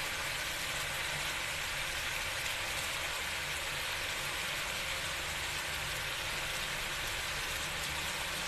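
Oil sizzling steadily in a karahi as quail pieces and whole tomatoes fry.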